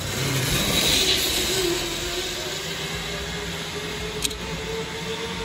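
Zipline trolley pulleys rolling along the steel cable as a rider launches: a steady whirring hiss with a humming tone through it, loudest in the first couple of seconds. A single sharp click sounds a little after four seconds in.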